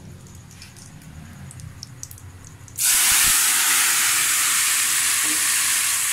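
Hot oil with fried cumin seeds (tadka) poured into a pot of yogurt kadhi, setting off a sudden loud sizzle about three seconds in that keeps going. Before it, only a faint low hum.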